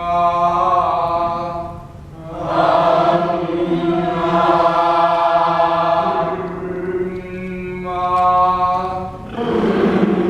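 Voices chanting long, held tones together as a vocal warm-up exercise, sustaining each note for several seconds, with a short break about two seconds in and another near the end.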